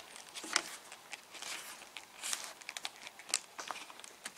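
Rubber hatch weatherstrip seal being pressed by hand onto the edge of a third-gen Camaro's hatch opening. It makes irregular soft rustles and small clicks as the hands work it along.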